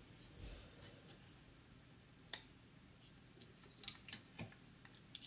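Near silence with faint handling clicks and ticks from a circuit board and soldering iron while a capacitor is being desoldered: one sharper click about two seconds in and a few small ticks near the end.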